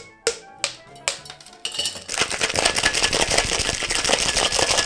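Ice cubes clink one at a time into a stainless steel cocktail shaker tin. About two seconds in, a hard, fast shake starts: ice rattling rapidly against the metal of the sealed shaker.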